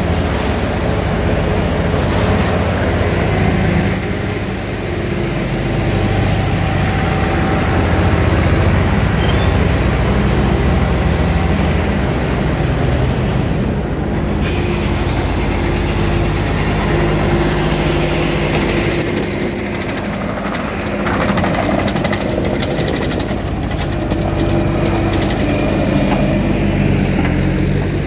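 A motor vehicle's engine running steadily, with its sound sitting mostly low, and an abrupt change in the background about halfway through.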